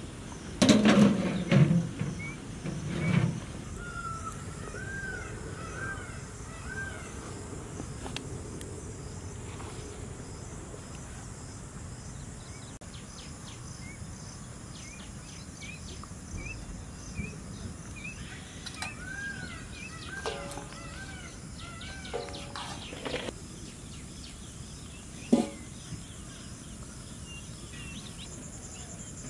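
Metal lid clanking as it is set on a large iron pan, about a second in and again near three seconds. Then outdoor ambience: a steady high insect drone and a bird calling in runs of short arched chirps, twice, with a single knock near the end.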